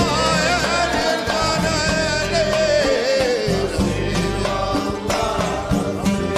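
Arabic song performed with an orchestra: a wavering melody glides up and down over steady accompaniment, and slides downward about halfway through.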